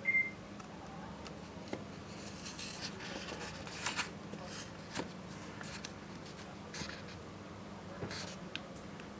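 A short high beep at the start, then scattered light clicks and rustles from fingers tapping and handling a Sony Walkman NWZ-Z1000 media player.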